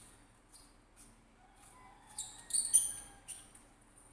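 Small handling noises from twisting open the battery compartment of a Boya BY-M1 lavalier microphone: light scratchy clicks and rubbing, loudest a couple of seconds in.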